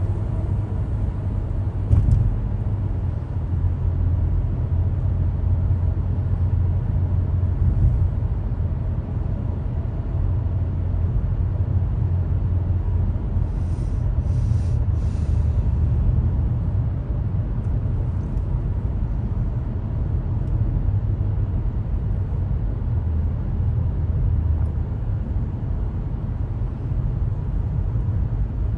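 Steady low rumble of a car driving, heard from inside the cabin: engine and tyre road noise, with a short knock about two seconds in.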